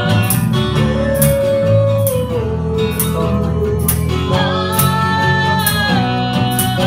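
Small live band playing a pop-rock song: a woman sings held notes over strummed acoustic guitar and electric guitar, with a steady percussion beat.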